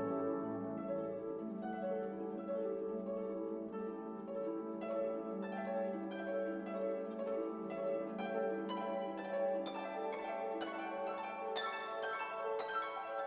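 Background instrumental music: plucked harp-like notes over a held lower tone, the plucking growing busier and brighter in the second half.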